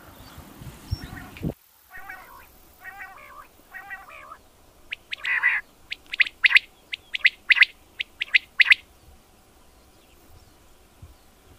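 A male common quail calling: a few soft, nasal mewing notes about a second apart, then its loud, sharp, clipped song of quick repeated three-note phrases over several seconds, stopping about three seconds before the end.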